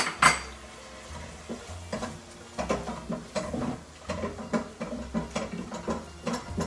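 Wooden spatula stirring and scraping chicken pieces around a non-stick wok, a quick run of clicks and scrapes against the pan, the loudest right at the start.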